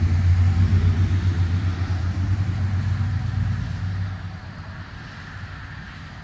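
A motor vehicle's low, steady rumble that fades away about four seconds in, as if it passes or drives off.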